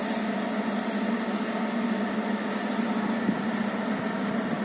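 Ventilation exhaust fan running, a steady airy whoosh over a low hum.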